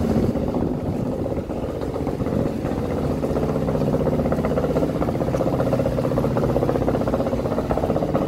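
Fishing trawler's diesel engine idling with a steady, even throb.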